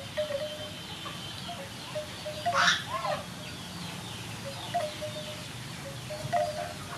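Yard ambience with a chicken calling once, loudest about two and a half seconds in. Under it, soft chime-like tinkling tones repeat throughout.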